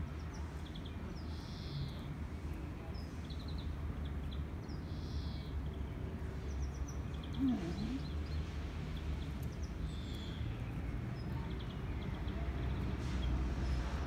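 Birds chirping, with short calls and quick trills repeating every few seconds over a steady low rumble. A short low sound breaks in about halfway through.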